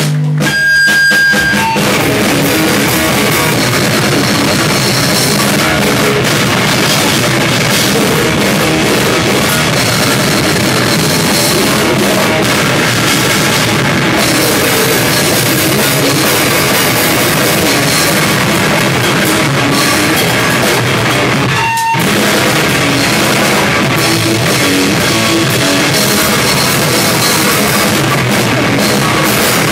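Live heavy rock band playing loud: a drum kit pounding with crashing cymbals under electric guitar. The full band comes in about half a second in and cuts out for a split second about two-thirds of the way through.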